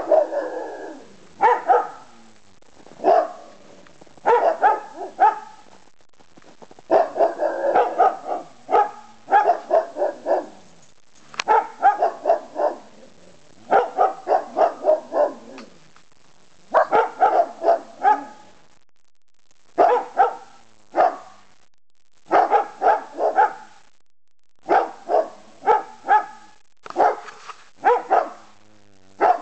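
Dog barking over and over in quick runs of several barks, with short pauses between the runs.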